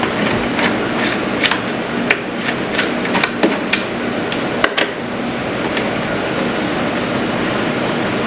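Irregular sharp clicks and knocks, about a dozen over the first five seconds and then none, over a steady background noise.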